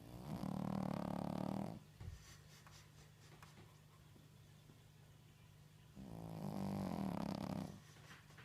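Sleeping Shih Tzu snoring loudly: two long, buzzy snores, one at the start and another about six seconds later.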